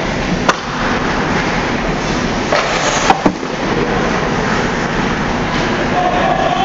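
Ice hockey game in an arena: a steady rushing din of play on the ice, cut by several sharp clacks of stick and puck, once about half a second in and a quick cluster around three seconds in.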